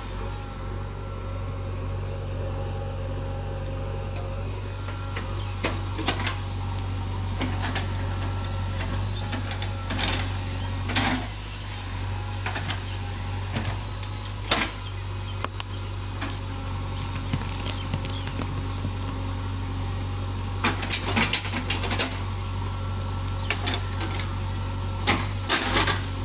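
JCB backhoe loader's diesel engine running steadily while the backhoe digs a trench, with scattered sharp knocks and clatters every few seconds from the bucket working the soil and stones, more of them near the end.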